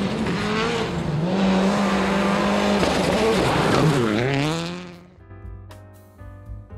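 Citroën Xsara WRC rally car's turbocharged four-cylinder engine at high revs on a stage. The revs dip and climb again twice, the second time sharply about four seconds in, and then the sound fades out about five seconds in, giving way to soft piano music.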